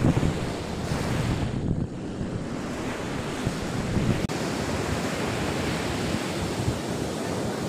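Ocean surf breaking and washing up a sandy beach, a steady rush, with wind buffeting the microphone, strongest in the first two seconds.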